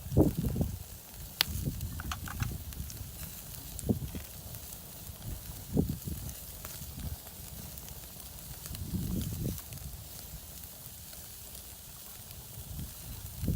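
Campfire crackling, with scattered sharp pops, over low rumbling noise that swells and fades.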